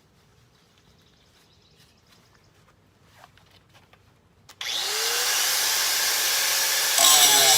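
Metabo WP9-115 Quick angle grinder switched on about four and a half seconds in: a click, then the motor winds up to speed with a rising whine and runs on loud and steady. A few faint knocks of handling come before it.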